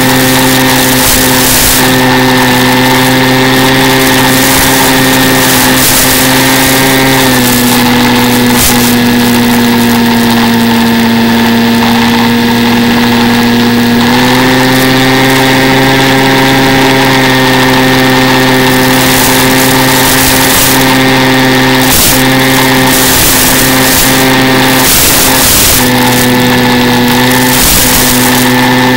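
Electric brushless motor and propeller of a Mini Skywalker RC plane, a loud steady whine heard from on board. The pitch drops slightly about seven seconds in as the throttle comes back, then rises again about halfway through.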